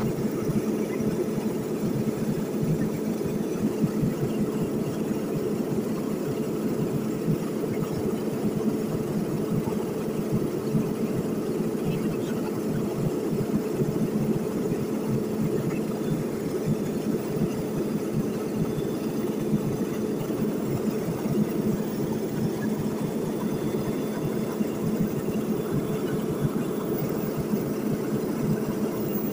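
Steady cabin drone of a small propeller plane in cruise: the engine and propeller hold one even, unchanging pitch, a low hum with a higher tone above it.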